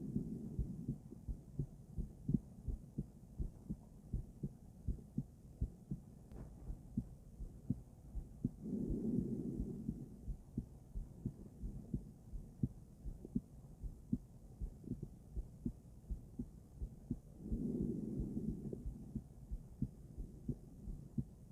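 A woman's heartbeat heard through a stethoscope: steady, evenly paced low lub-dub thuds. Twice, about nine seconds apart, a longer rushing swell rises over the beats for a second or two.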